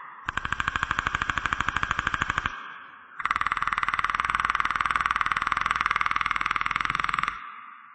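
Creature sound effect built from the Predator's clicking call: two rapid rattling click trains, the second longer, ending in a fading echo.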